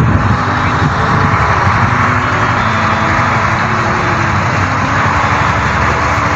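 Added sound effect of a heavy truck engine running steadily, with a dense low rumble and no changes in pitch.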